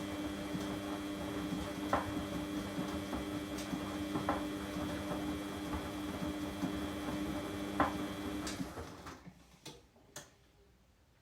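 Vehicle running with a steady hum and occasional sharp knocks, which the owner puts down to worn shock absorbers. The running stops about eight seconds in, followed by two clicks.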